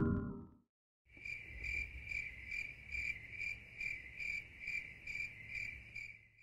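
A cricket chirping in an even rhythm, about two and a half chirps a second, starting about a second in after a short silence.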